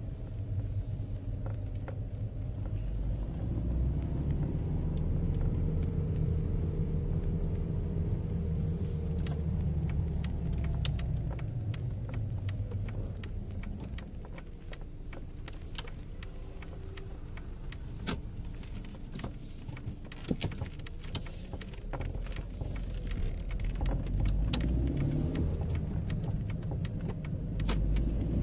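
VW Polo 6N2 engine and road noise heard from inside the cabin while driving: a low rumble that swells in the first part, eases off in the middle and rises again near the end. Scattered sharp clicks sound over it.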